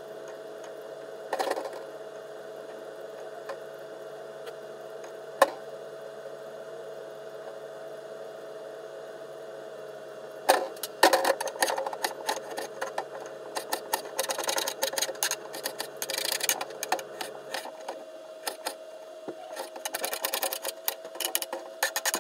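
Kitchen knife cutting raw potatoes on a plastic cutting board. There are a few single knocks in the first half, then quick, uneven chopping taps from about halfway through as the potato is sliced and diced. A steady hum runs underneath.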